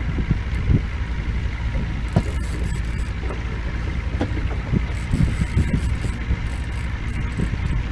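Boat motor running steadily, with wind buffeting the microphone in short irregular gusts.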